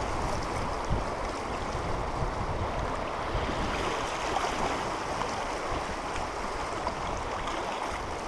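Steady rushing of fast, choppy river water around a canoe running a rapid, heard from the canoe's bow close to the water, with a couple of light knocks about one and two seconds in.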